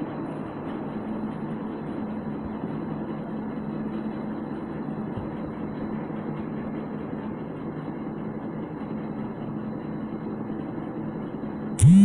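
A motor or engine running steadily with an even, unchanging hum. A loud electronic jingle cuts in right at the end.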